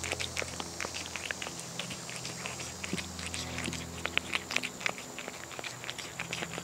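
A cat eating tuna from a bowl: close-up chewing and smacking, many quick irregular clicks a second.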